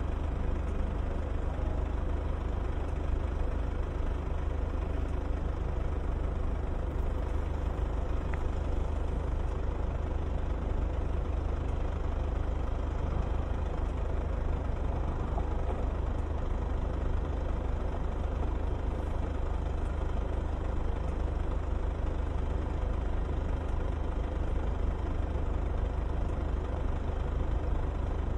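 Steady low engine rumble of idling street traffic, unchanging throughout.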